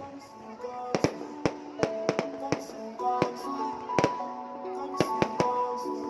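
Fireworks going off in an irregular run of sharp bangs and pops, several strong ones among lighter cracks. They are heard over music with held notes.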